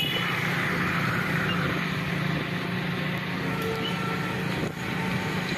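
Steady engine hum of a moving road vehicle, with road and wind noise.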